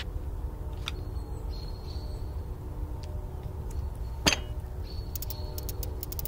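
Bicycle being mounted and ridden off: a single sharp click about four seconds in, then a quick run of light ticks like a freewheel ratchet near the end, over a steady low rumble with a few short high chirps.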